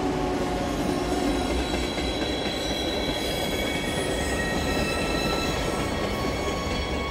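Train running on rails with a steady rolling noise; from about three seconds in, its wheels squeal in thin high tones.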